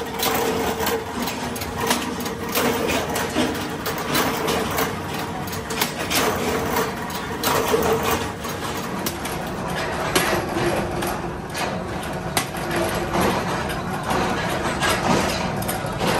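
Forging-shop machinery running: a steady motor hum under frequent, irregular metal clanks and knocks.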